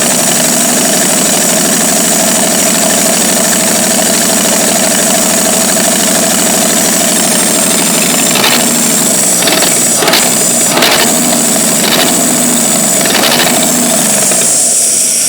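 1949 Studebaker 2R5 truck's Commander six-cylinder engine idling steadily, with several sharp knocks in the second half. It has a vacuum leak and will not stay running unless the carburettor is fully choked.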